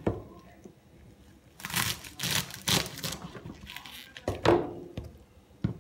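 Kitchen knife cutting through a bunch of garlic chives onto a cutting board: about half a dozen crisp, crunchy cuts, unevenly spaced, each ending in a knock of the blade on the board.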